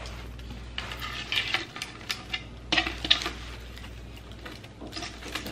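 A dry grapevine wreath being handled, its twigs crackling and rustling against a chalkboard, with scattered sharp clicks that are busiest about a second in and again around three seconds in.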